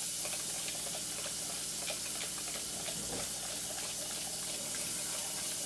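Breakfast sausage frying in oil in a pan: a steady sizzling hiss with small scattered crackles.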